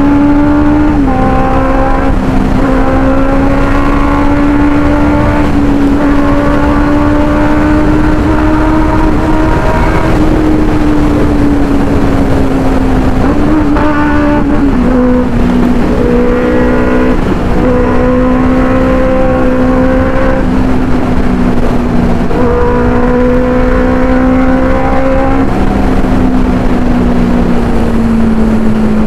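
Inline-four superbike engine running on the move. Its note drifts slowly up and down with speed and steps abruptly a few times, as at gear changes, over a steady rush of road and wind noise.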